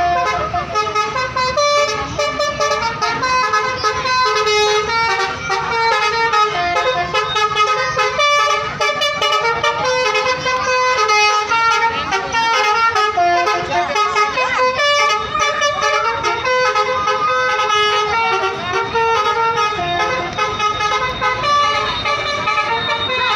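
Telolet bus horn, a set of multi-tone air horns, playing a fast melody of stepped notes with hardly a break.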